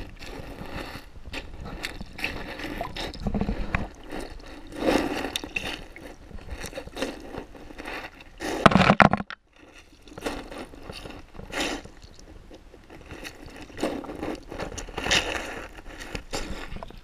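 Muffled underwater sound picked up by a GoPro in its waterproof housing in a shallow river: moving, gurgling water with irregular clicks and knocks against the housing. About nine seconds in a louder surge breaks off suddenly into a short near-silence.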